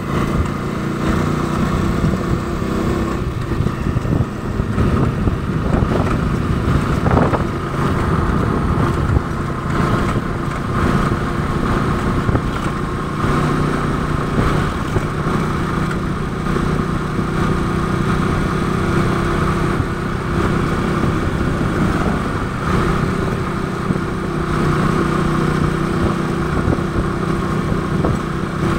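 Small engine of an open-sided motor tricycle running steadily at road speed, heard from the passenger seat, with wind rumble and tyre noise from the road.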